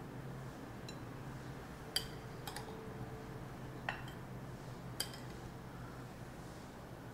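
Metal spoon and fork clinking lightly against a ceramic plate, a few scattered light clinks, over a low steady hum.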